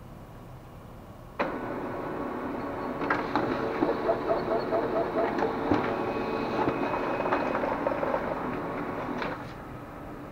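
HP LaserJet 400 M401dn laser printer printing a test page through its newly replaced fuser film. Its motors and gears start suddenly about a second and a half in, run with a steady hum and a string of clicks and ticks as the sheet feeds through, then stop near the end.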